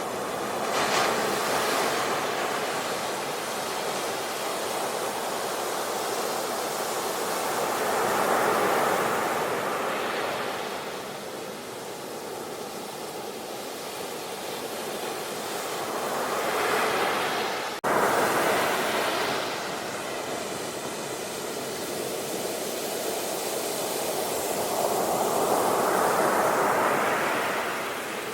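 Ocean waves breaking and washing up a beach, the surf swelling and receding about every eight to nine seconds. A single sharp click sounds about two-thirds of the way through.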